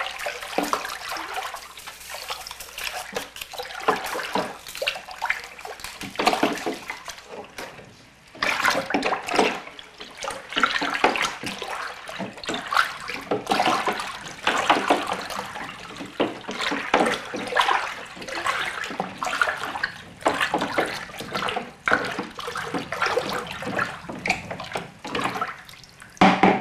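Sugar-water mash sloshing and splashing in a plastic cooler as it is stirred with a wooden stick, in irregular swishes, while baker's yeast is mixed in so it won't lump.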